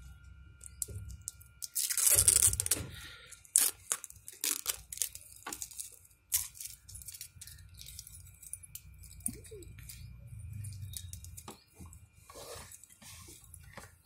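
Thin plastic protective covers being peeled and torn off a stainless steel watch bracelet: irregular crinkling, crackles and small clicks, loudest about two seconds in.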